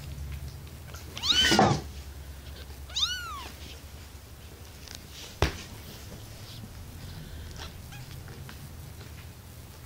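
Very young kittens mewing: two high, arching mews, the louder about a second in and the other about three seconds in. A single sharp tap follows a couple of seconds later.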